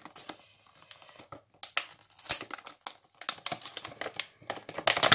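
A box of washi tape rolls being handled and opened: rustling, crinkling and light clicks, with sharper knocks about two seconds in and near the end.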